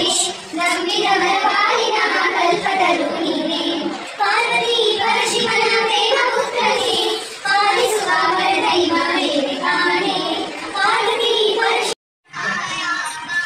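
A song: a singing voice over music. The sound cuts out completely for a moment about twelve seconds in, and quieter music with held notes follows.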